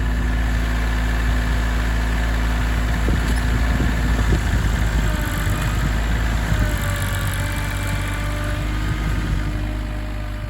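Tractor engine running steadily, with a spell of rattling and knocking about four seconds in; the sound grows quieter near the end.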